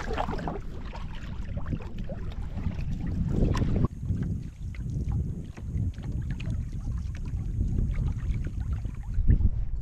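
Kevlar canoe being paddled across a lake: paddle strokes splashing and dripping and water lapping the hull, with wind rumble on the microphone.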